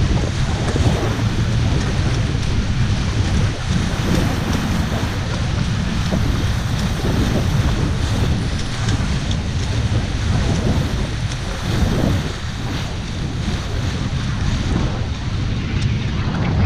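Wind buffeting the microphone on a beach catamaran sailing at about 30 km/h, over the rush and hiss of water off the hulls. The sound is loud and steady, with low rumbling gusts.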